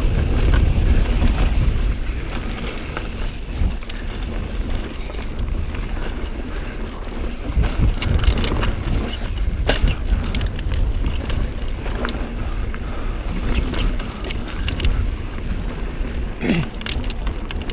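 Mountain bike ridden fast over rocky singletrack: wind buffeting the microphone, with the tyres and frame clattering in irregular sharp knocks and rattles over the rocks.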